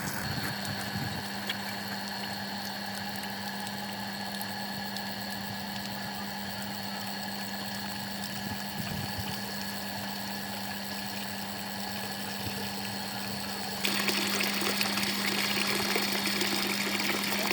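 Restored old Soviet water pump running with a steady hum while water rushes through it. Near the end the water noise suddenly gets louder.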